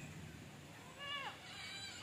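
Two faint animal cries. The first is short and arches down in pitch about a second in; the second is longer, held, and drops in pitch near the end.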